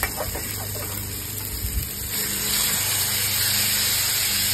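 Thin-sliced marinated chicken strips sizzling in hot sesame oil on a Blackstone flat-top griddle, the sizzle swelling about two seconds in as the meat spreads across the hot steel. A low steady hum runs underneath.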